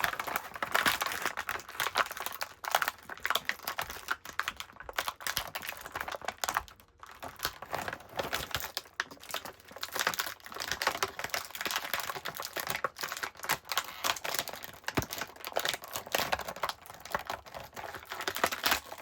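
Plastic packaging tray being handled, with a dense run of rapid clicks and crackles as an action figure is worked free of it, and a short lull about seven seconds in.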